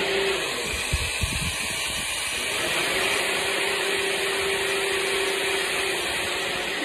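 Corded electric drill running with a steady whine into a wooden door. The motor stops briefly just after the start, with a few low knocks around a second in, then runs steadily again and stops near the end.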